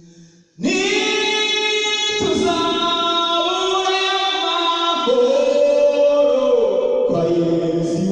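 A man singing unaccompanied into a handheld microphone. His voice comes in under a second in and holds long, loud notes, stepping to a new pitch every second or so.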